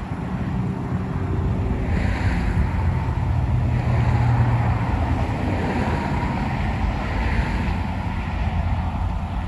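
Low, steady rumble of a distant approaching freight train's diesel locomotives, a six-unit lash-up of GE and EMD units, with wind buffeting the microphone.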